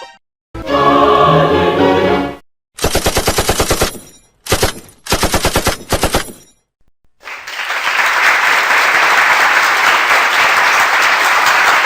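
A string of separate sound effects: first a sung choir chord lasting about two seconds, then two bursts of rapid machine-gun fire with a short burst between them, then a long steady rushing noise that starts about seven seconds in.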